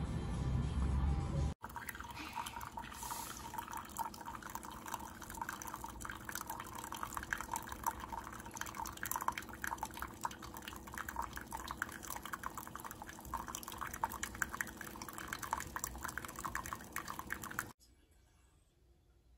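A coffee machine dispenses a thin stream of coffee into a ceramic mug: a fine, continuous trickle and patter over a faint steady machine hum. It stops abruptly near the end. Before it, a low rumble cuts off about a second and a half in.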